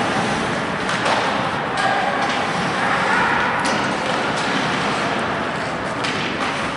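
Ice hockey play echoing around a rink: the steady hiss of skates and indistinct voices, with several sharp clacks of sticks and puck.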